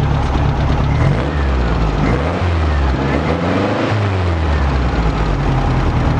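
A 1969 VW Beetle's air-cooled flat-four engine running on its newly fitted single carburetor. It idles steadily, is revved up and down a couple of times by hand at the carburetor's throttle linkage between about one and four seconds in, then settles back to idle.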